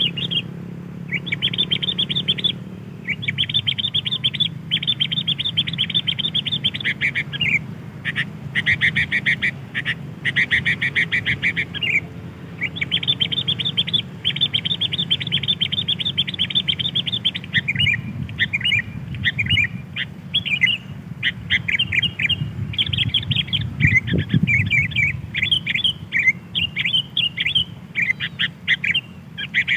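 Sooty-headed bulbul (kutilang) calling in fast chattering runs of high chirps, each run lasting one to two seconds with short breaks between, over a faint low hum.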